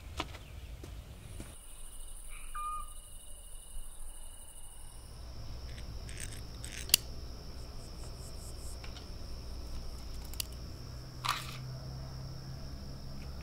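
A handful of sharp metallic clicks as guns are handled, a rifle taken down and then a pistol's stripped parts, the loudest about halfway through. Under them runs a steady high thin whine and a low hum.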